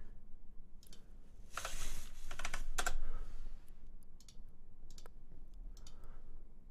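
Scattered sharp clicks from a computer mouse and keyboard, with a short rush of noise about one and a half seconds in.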